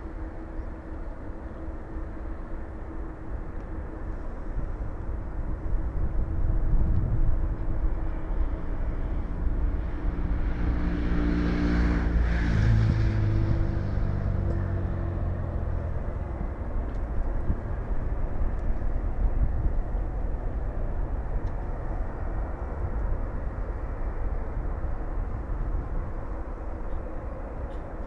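Jet airliner engines at an airport: a steady low rumble that swells to its loudest about ten to fourteen seconds in, as a jet's whine passes and drops in pitch.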